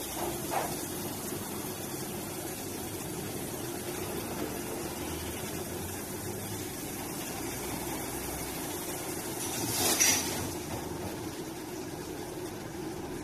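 Touchless car wash machine running: a steady mechanical hum and hiss, with one brief louder hiss about ten seconds in.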